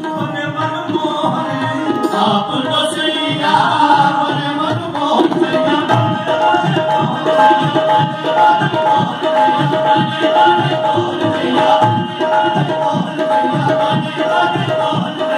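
Live Indian devotional ensemble music: harmoniums playing with a steady hand-drum rhythm. From about five seconds in, the harmoniums pulse a repeated two-note figure over the beat.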